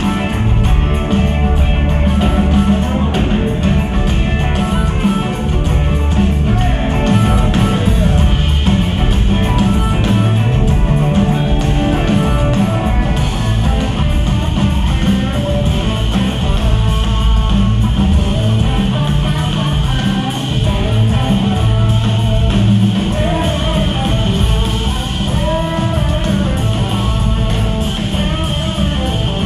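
Live blues band playing loud amplified music: electric guitars over a drum kit, without a break.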